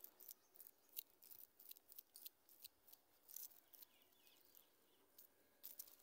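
Dry sunflower head crackling and rustling as seeds are rubbed out of it by hand: faint, irregular crisp crackles.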